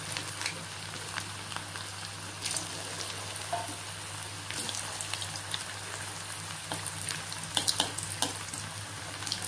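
Onion bonda (gram-flour and onion fritters) deep-frying in hot oil: a steady sizzle with scattered crackles, and a few sharper pops near the end.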